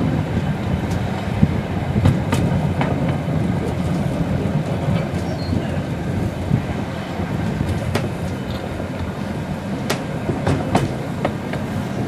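Wengernalpbahn electric rack-railway train running, heard from on board: a steady low rumble with irregular sharp clicks and knocks from the wheels and track.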